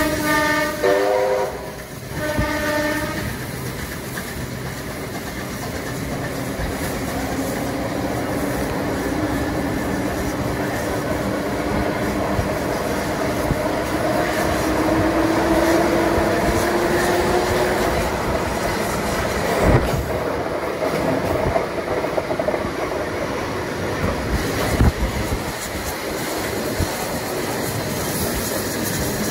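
A train running with wheels clacking over the rail joints. It opens with a few short pitched signal blasts, and a tone rises slowly in pitch through the middle as it gathers speed.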